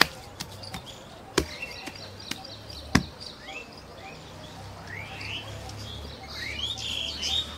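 Wet cow dung slapped and patted by hand on a concrete slab while being shaped into dung cakes: three sharp slaps about a second and a half apart. Birds chirp with short rising calls throughout, busiest near the end.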